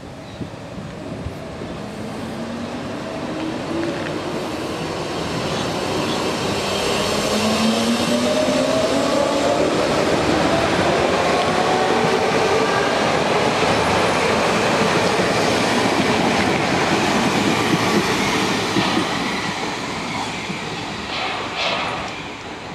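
Hamburg U-Bahn DT2 train pulling away from the platform, its motor whine climbing steadily in pitch as it picks up speed, over wheel-on-rail noise. The sound grows louder as the cars pass, then eases off toward the end.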